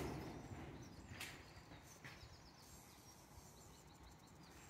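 Near silence: quiet rural background with a couple of faint clicks and a short run of faint, quick high chirps around the middle.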